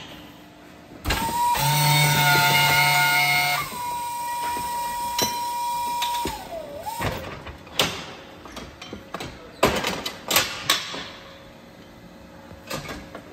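Electric drive motor of a cattle hoof-trimming chute running with a steady whine for about six seconds, its pitch sagging briefly just before it stops. After it stops come scattered sharp metal knocks and clanks from the chute's steel frame and fittings.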